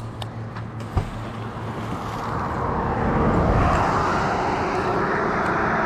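A motor vehicle going by, its engine and tyre noise building over the first few seconds and then holding steady. A single sharp knock about a second in.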